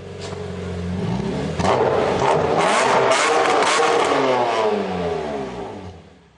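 Car engine revving hard. It swells to a peak about halfway, with several sharp cracks, then its pitch falls as it fades out.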